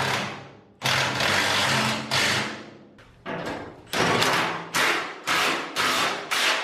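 Cordless power driver tightening a nut onto a bolt through the new wheelbarrow handles: one long run with a steady motor hum about a second in, then about seven short bursts as it is pulsed to snug the nut down.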